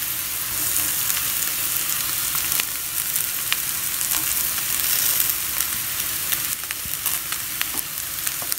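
Onions, green chillies and curry leaves sizzling in coconut oil in a frying pan, with scattered crackles, as shredded fried chicken is tipped in and a wooden spatula stirs through it.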